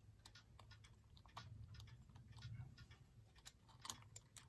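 Near silence with faint, irregular small clicks and taps as fingers handle the brass plate of a clock movement, working the set knob off.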